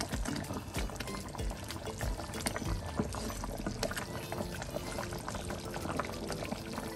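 Wooden spatula stirring a thick coconut-milk fish curry in a pan: wet slopping and sloshing with many small clicks and pops.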